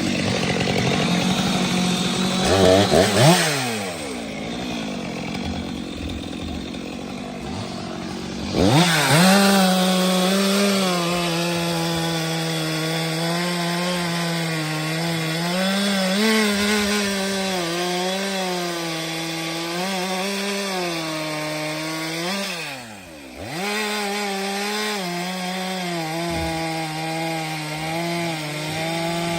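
Stihl MS 462 C-M two-stroke chainsaw cutting firewood at full throttle, its pitch wavering as the chain works through the wood. About three seconds in the revs fall away to a low idle. About nine seconds in it revs back up and cuts steadily again, with a brief drop in revs and recovery near the end.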